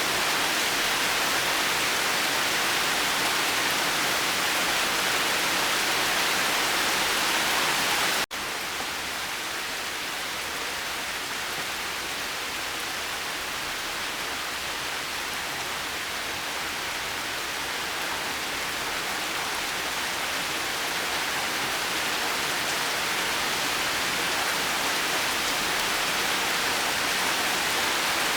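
Steady heavy rain, an even continuous hiss. About eight seconds in it cuts out for an instant and comes back somewhat quieter, then slowly grows louder again toward the end.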